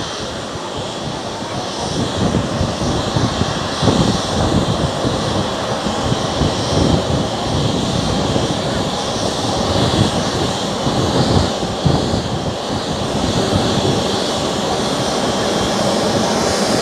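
Boeing 777-300ER's GE90 turbofan jet engines running, a steady loud jet noise with a fluctuating low rumble.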